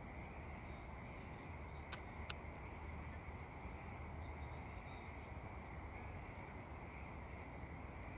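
Faint, steady outdoor background noise with a low rumble. Two sharp clicks come about two seconds in, less than half a second apart.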